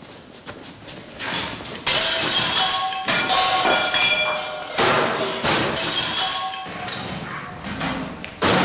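Glass and metal being smashed: a string of heavy crashes about one every second or two, each followed by ringing and clinking debris, echoing in a large room.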